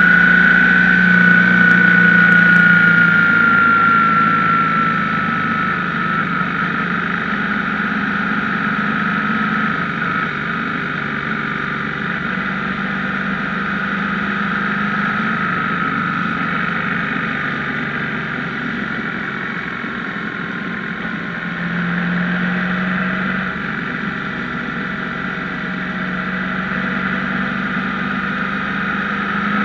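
BMW R1150GS boxer-twin engine running under way. Its note eases down over the first several seconds, holds steady, and climbs again near the end.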